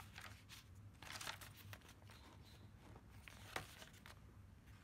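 Faint rustling and crinkling of paper as the pages of a handmade paper journal are turned and handled, in a few short scattered rustles, the sharpest about three and a half seconds in.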